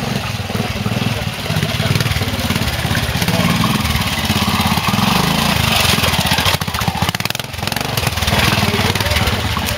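Pre-1965 trials motorcycle engine running at low revs close by as the bike climbs a rocky stream bed, its firing pulses steady throughout with a brief dip near the end.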